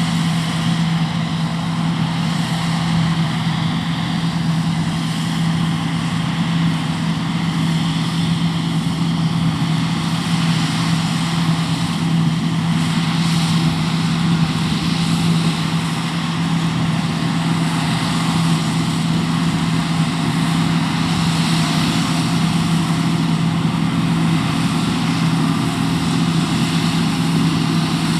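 John Deere T560 combine harvester running steadily at work: a constant engine hum under an even rushing noise, with no change in pitch or load.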